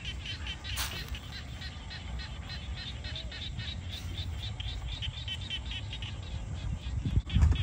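An animal calling in quick, regular pulses, about three a second, over a steady low rumble, with a loud thump near the end.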